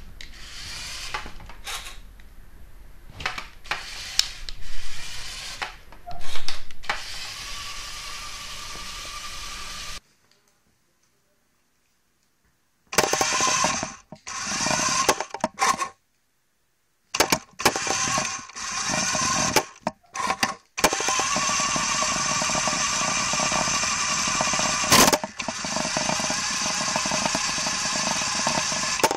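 Small Lego electric motor and plastic gear train whining steadily as the toy vehicle drives, in several runs of a few seconds each in the second half, each cut off suddenly. The first part is quieter, with a few knocks and clatters and a faint motor whine near its end.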